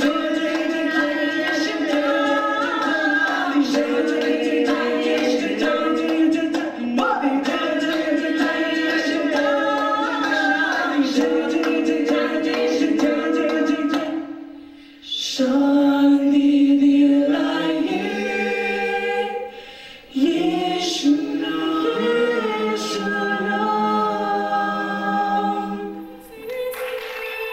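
A mixed group of male and female voices singing a cappella in harmony, holding long chords. About halfway through the voices stop briefly, then come back in with chords that change every second or two.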